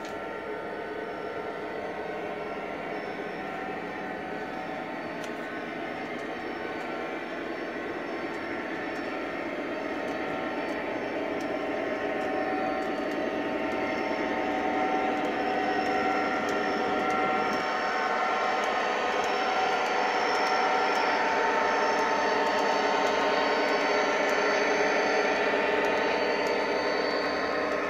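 O gauge model diesel locomotive with coal hoppers running on track, a steady mechanical whir and rumble of its motor and wheels that grows gradually louder as it approaches.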